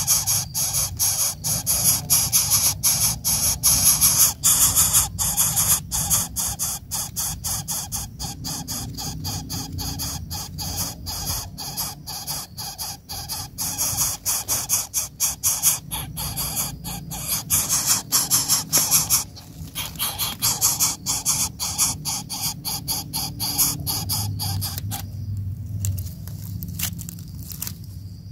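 Coucal nestling begging at the nest with rapid, high-pitched squealing hisses while the adult coucal bends over it, stopping a few seconds before the end.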